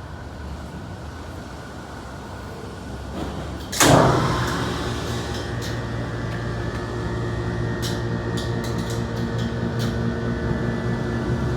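Hydraulic elevator pump unit in the machine room starting with a sudden clunk about four seconds in, then the pump motor running with a steady low hum as it drives oil into the jack to raise the car. A few light clicks sound over it.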